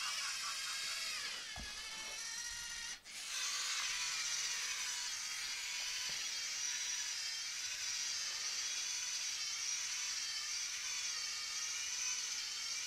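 LEGO Mindstorms NXT servo motors whining through their gear trains as the small robot drives and turns on its own. The pitch wavers, and the whine cuts out briefly about three seconds in before picking up again.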